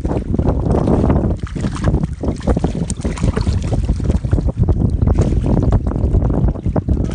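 Strong wind buffeting the microphone in irregular gusts, a dense low rumble with no let-up.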